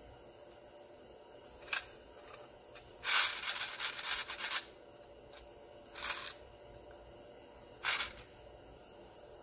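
Loose primers rattling and sliding in the clear-lidded plastic tray of a hand priming tool as it is shaken and tilted, heaping them toward the tool's feed. A small click, then one long rattle of about a second and a half, then two short rattles.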